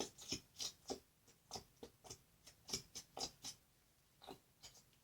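Plastic glue bottle being squeezed into a bowl, giving a quick irregular series of short sputtering squirts that die away near the end.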